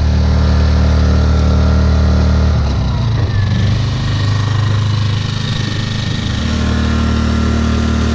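Small petrol generator engine running steadily; its note dips and wavers for a few seconds midway, then settles back to an even run.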